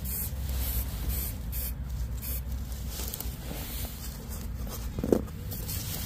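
Aerosol spray can spraying paint onto a hung axe head in a series of short hissing bursts, with a short knock about five seconds in.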